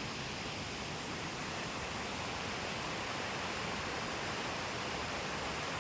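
Steady rushing of a river flowing nearby, an even wash of water noise.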